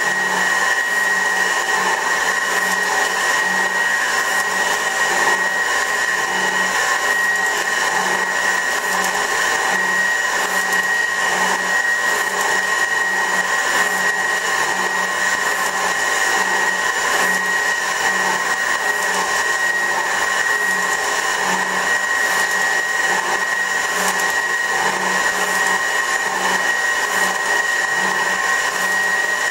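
Värnamo metal shaper running steadily while planing a steel part, its drive making a constant high whine with a faint regular pulse underneath.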